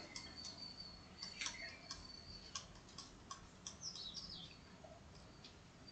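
Faint scattered ticks of a stylus on a tablet screen during handwriting, over a faint steady high whine, with a few brief high falling chirps about four seconds in.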